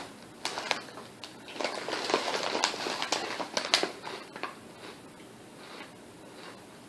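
Potato chips crackling and crunching as they are taken and eaten: many irregular crisp crackles for about four seconds, then dying away.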